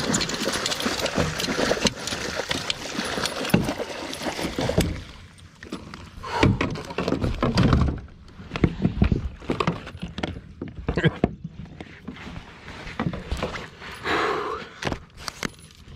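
Northern pike thrashing in a landing net beside a kayak, water splashing for the first few seconds. After that the splashing stops and a string of knocks and clatters follows as gear is handled on the plastic kayak.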